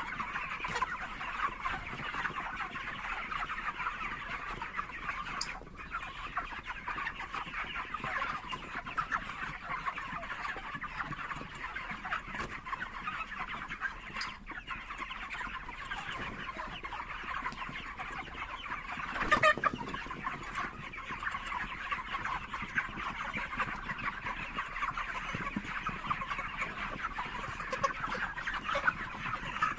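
A large flock of farmed chickens clucking and cheeping together in a continuous, dense din, with one brief louder moment about two-thirds of the way through.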